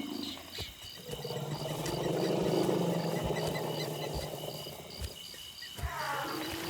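Female elephant's mating call: a long, low rumbling call with a steady pitch, starting about a second in and ending near the end, over a steady chorus of insects.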